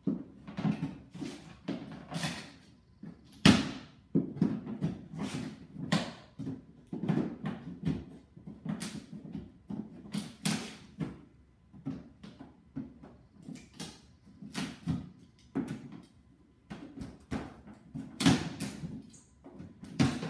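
Pry bar levering the top off a wooden shipping crate: irregular knocks, cracks and creaks of wood being forced apart. The sharpest crack comes about three and a half seconds in.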